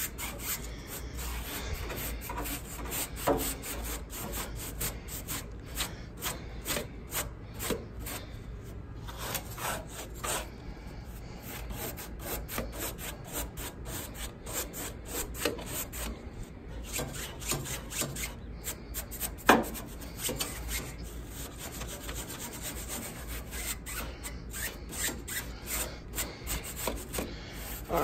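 Small hand-held bristle brush scrubbing caked dirt and lint off the fins of an air-conditioner outdoor condenser coil in many short, quick strokes, with one louder scrape about two-thirds of the way in.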